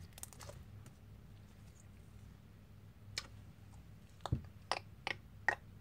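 Homemade glue slime being handled and kneaded, giving about five small sticky clicks and pops in the second half, under low room noise.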